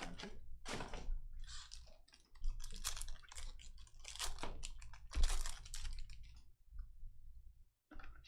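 Trading card packaging being torn open: crinkling, ripping wrapper and cardboard in a run of irregular rustles, with a pause about six and a half seconds in and one more short rustle near the end.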